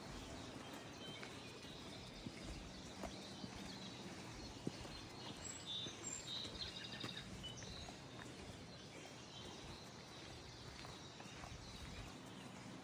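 Faint outdoor ambience: a steady low hiss with a few short, high bird chirps around the middle, and scattered light clicks.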